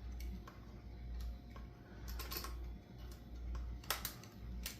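Light plastic clicks and ticks of zip ties being handled and pulled tight, with a short run of clicks a little over two seconds in and a few sharper ticks near the end, over a low hum.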